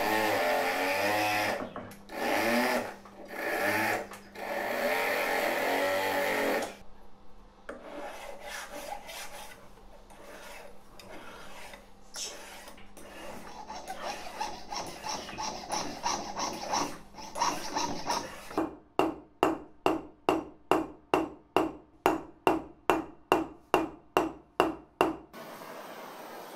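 Hand file drawn back and forth across a thin metal strip in even rasping strokes, about three a second, louder and more regular in the second half. It is preceded by a wavering metal-on-metal squeal as a metal tube is worked by hand.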